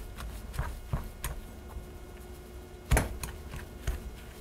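Metal pastry cutter chopping through a chicken and riced-potato mixture in a glass bowl, with irregular clicks and knocks as the blades strike the bowl, the loudest about three seconds in.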